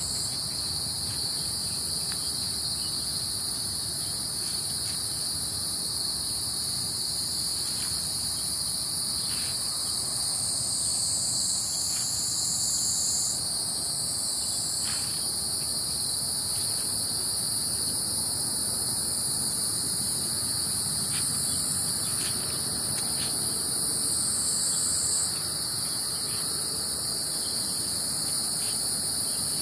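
Steady, shrill chorus of insects in summer, with one high band of sound held constant and a higher, hissy band that slides down in pitch a couple of times. Faint short ticks come through underneath.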